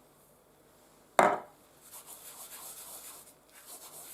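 A short sharp knock about a second in, then soft, fast, repeated rubbing and scratching as dried thyme is worked over and into minced beef by hand.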